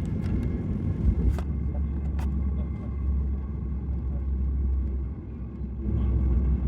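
Low, steady rumble of a jet airliner during its night takeoff, with two sharp clicks about one and two seconds in.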